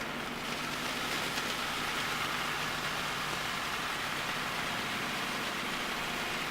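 Stir-fry sizzling in a frying pan: a steady crackling hiss over a low steady hum.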